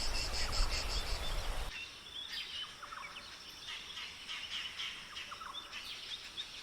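Outdoor nature sound: a low rushing noise with insects chirping in a fast, even pulse, which cuts off abruptly after about two seconds to quieter, scattered bird chirps and calls.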